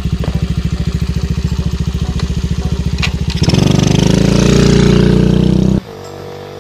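Honda Monkey's single-cylinder four-stroke engine, bored up to 75cc with a Kitaco kit and breathing through a Takegawa Z muffler, idling with an even pulsing beat. A little past halfway it is revved up and held for about two seconds. It then breaks off suddenly, leaving a quieter steady sound.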